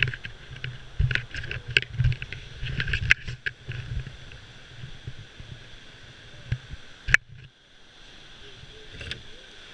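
Knocks, bumps and rumbling handling noise as a solo slalom canoe is carried and moved along a rocky bank, with a loud knock about seven seconds in, after which the handling noise dies down. Rushing white water from a weir runs steadily underneath.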